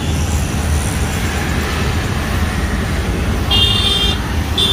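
Steady rumble of road traffic, with a vehicle horn tooting twice near the end in two short blasts.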